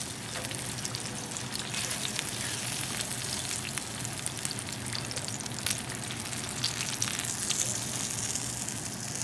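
Chicken drumsticks deep-frying in hot oil: a steady sizzle with scattered crackles and pops.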